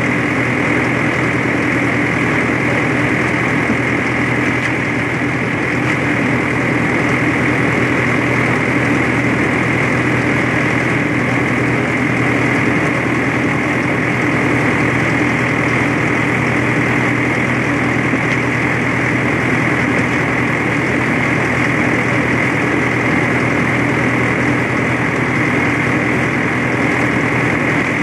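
A road-rail Ferguson tractor's engine running steadily as the tractor travels along the railway track, a loud, even drone that does not change.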